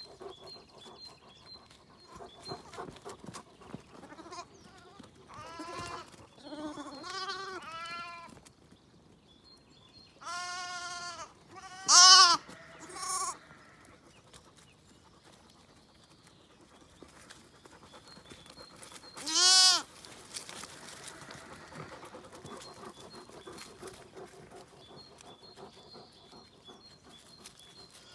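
Zwartbles lambs bleating: a few short bleats in quick succession, then louder single calls with pauses between them. The loudest comes about two-thirds of the way through.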